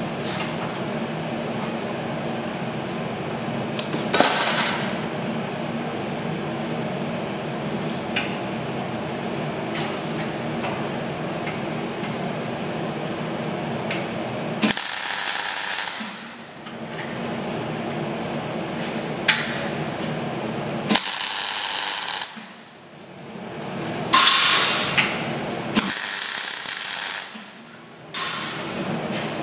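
MIG welder tack-welding a steel tube gantry beam: four short bursts of arc hiss in the second half, each one to two seconds long, over a steady background hum.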